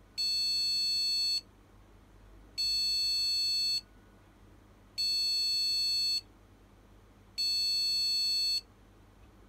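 Small buzzer on a Gigabyte H110M S2H motherboard's speaker header sounding four long, identical high beeps, each a little over a second, about two and a half seconds apart. It is the board's POST error beep code, taken from online advice to be memory-related, sounding here with no RAM installed at all.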